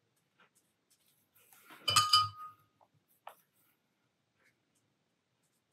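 A paintbrush clinks against a glass rinse-water jar about two seconds in, with a short ringing tone, followed by a small tick.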